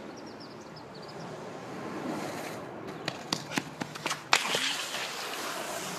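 Skateboard rolling down the asphalt street toward the phone, its rolling noise building, then a quick run of sharp clacks ending in a loud smack about four seconds in.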